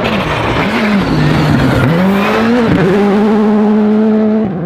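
Skoda Fabia R5 rally car's turbocharged four-cylinder engine driven hard, its pitch dipping and climbing again several times between gears, then held steady near the end.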